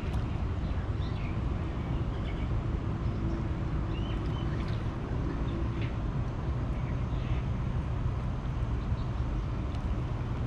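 Steady low outdoor rumble with short high chirps scattered through it.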